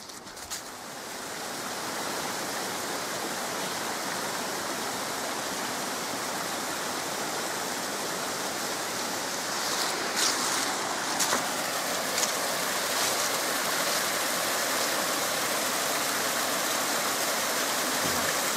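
A small woodland stream splashing down a mossy bank in little cascades. The steady rush grows louder over the first couple of seconds, then holds.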